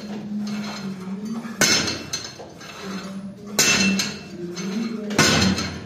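Cable machine weight stack clanking: three sharp metallic clanks about two seconds apart, one per rep, as the steel plates knock together.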